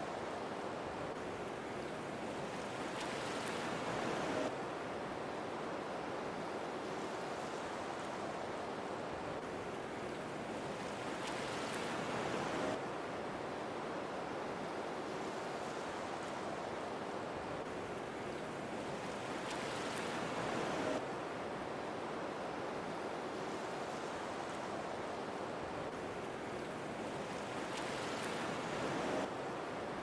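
Waterfall's steady rushing water, an even hiss that swells a little about every eight seconds and drops back suddenly.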